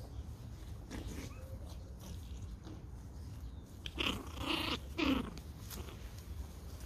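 Pomeranian puppies play-fighting. About four seconds in, a puppy gives two short, loud yapping cries in quick succession.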